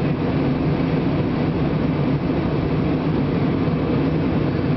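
Steady drone of an airliner's engines and airflow in flight, heard from inside the passenger cabin.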